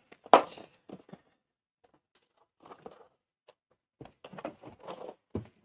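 Styrofoam carrying case being opened and its contents handled: a sharp knock about a third of a second in, a few faint scrapes, then a busier stretch of scraping and rustling near the end.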